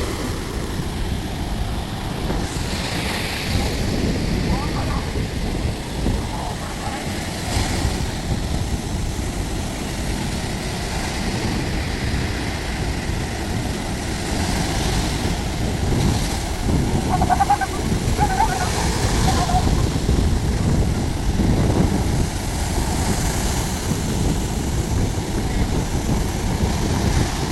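Sea surf washing onto a beach, with wind rumbling on the microphone; the wash grows a little louder in the second half.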